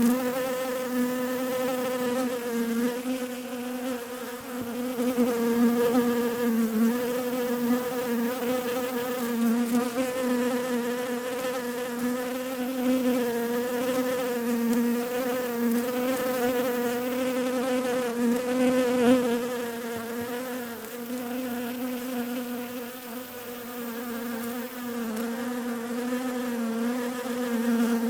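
Bees buzzing in a continuous drone whose pitch wavers slightly, with small swells and dips in loudness.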